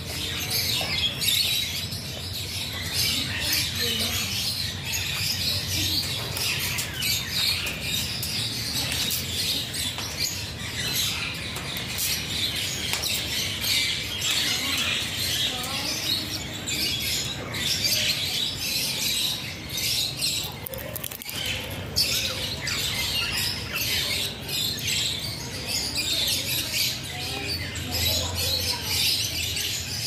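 Birds chirping and tweeting continuously, a dense chatter of many short, high calls.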